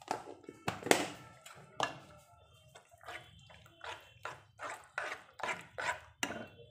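Metal spoon stirring a thick, wet lentil and amaranth-leaf stew in a metal pan. It knocks and scrapes against the pan in short repeated strokes, about three a second, with a wet squelch.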